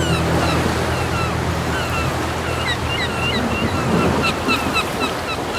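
Sea surf washing steadily, with many short, high bird chirps scattered over it. A held music chord fades out in the first half second.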